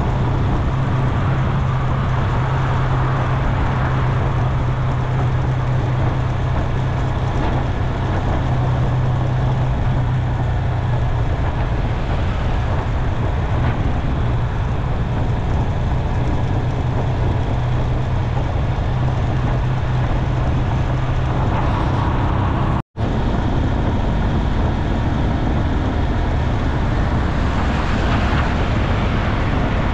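Motorcycle riding at a steady speed on the open road: a steady engine hum under wind and road noise. The sound cuts out for an instant about three-quarters of the way through and resumes with the engine hum at a slightly higher pitch.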